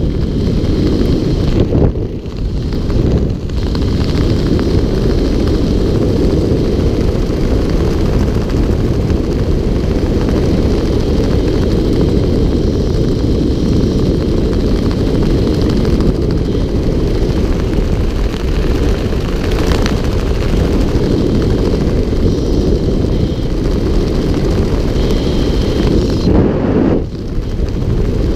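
Wind rushing over a GoPro camera's microphone during parachute canopy flight: a loud, steady low rumble, easing briefly a few times.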